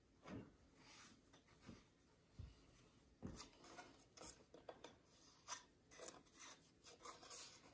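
Faint rubbing and a few light knocks from handling a thin wooden dice-tower panel lined with velvet: fingers pressing the velvet into its corner, then the piece being picked up, turned and set down.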